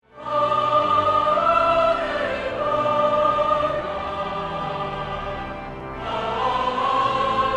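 Choral music: a choir singing slow, held notes that change every second or two, with a brief dip between phrases about six seconds in.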